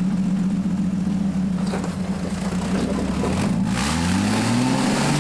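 Rock-crawling buggy's engine running at low revs, then revving up in a rising pitch about three and a half seconds in as the buggy climbs over boulders.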